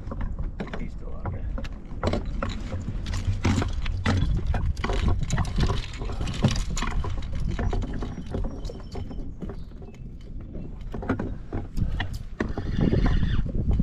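Repeated clicks and knocks of gear against a plastic fishing kayak, over a steady low rumble.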